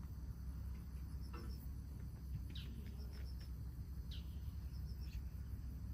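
Crickets chirping in short groups of about three high pulses, with a few brief bird chirps, over a steady low rumble.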